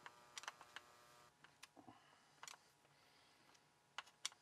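Faint, scattered clicks of a screwdriver and hands at work as the screws holding a front bumper to an RC truck's chassis are given their last half turn, with two sharper clicks near the end.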